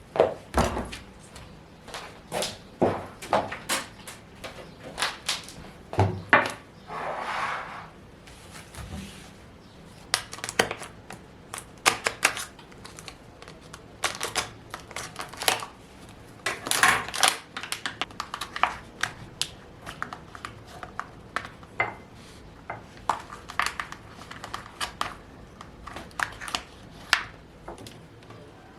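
Household objects being handled and set down: irregular knocks, clicks and clatters, with a short rustle about seven seconds in.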